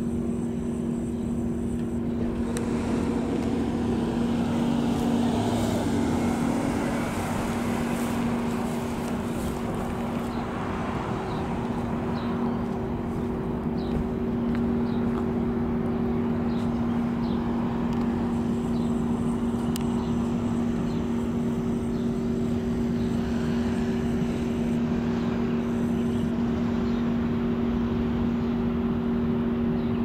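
Road traffic at an intersection: a car passing, swelling up and fading away over several seconds near the start. A steady low hum with two pitches runs underneath throughout.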